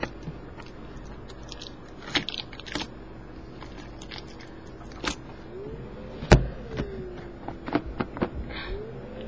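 Hands handling and opening a cardboard camcorder box: scattered clicks, taps and scrapes, with the loudest knock about six seconds in.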